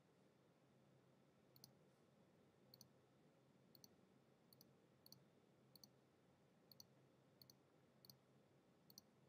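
Faint computer mouse button clicks, about ten of them, each a quick double tick of press and release, spaced roughly a second or less apart.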